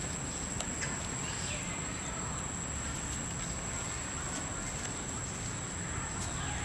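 Steady outdoor background noise under a constant thin high whine, with a small click just after the start and two faint falling calls, about one and a half and six and a half seconds in.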